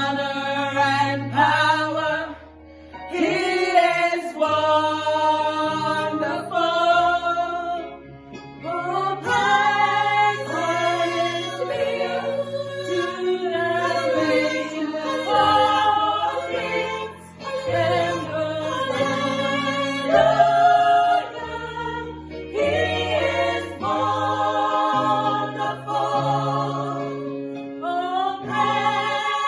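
Gospel choir singing in several parts, sustained chords in phrases with brief breaks between them, over low held bass notes.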